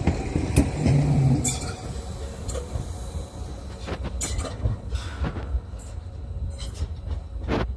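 Electric narrow-gauge MBC passenger train pulling away. A low hum stops about a second and a half in, then the wheels click several times at irregular intervals over rail joints and points, growing fainter as the train recedes.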